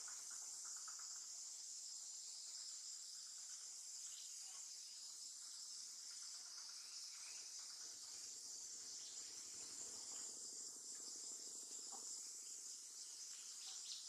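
Faint, steady high-pitched insect chorus, like crickets or cicadas, droning without a break.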